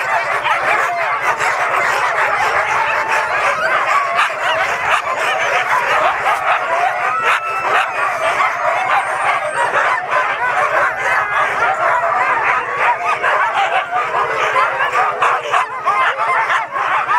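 A large pack of harnessed sled dogs, huskies, barking and yelping all together in a dense, unbroken chorus: the excited clamour of sled dogs being readied to run.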